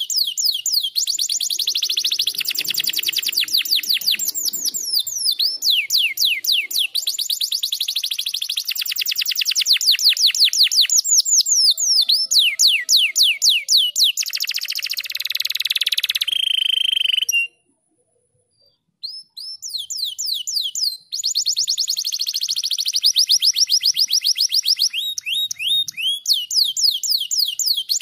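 Domestic canary singing: long, fast trills of rapidly repeated rising notes, high-pitched and piercing. The song breaks off in a short silence about two-thirds of the way through, then resumes.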